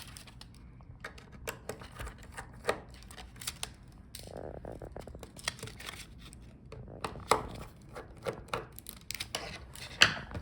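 Small tools and screws clicking, tapping and scraping on a laptop's plastic palmrest as the side screws holding the touchpad are taken out. There is a short buzzing rattle about four seconds in and a sharper click near the end.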